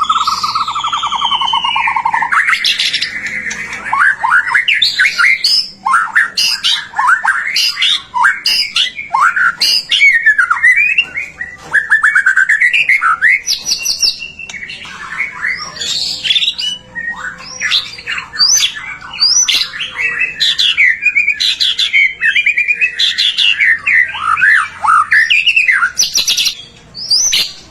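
White-rumped shama singing a long, varied song of rapid whistled phrases, trills and pitch glides, almost without pause.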